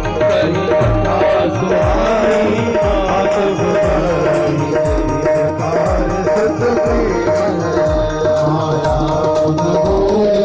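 Indian devotional hymn music: a hand drum plays a steady beat under a held drone note, with a voice singing a wavering melody.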